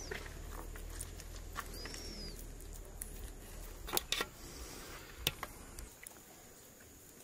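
Outdoor ambience: a bird gives a short high chirp at the start and again about two seconds later, then a few sharp metallic clinks of steel kebab skewers being handled around the middle. A low rumble underneath stops shortly before the end.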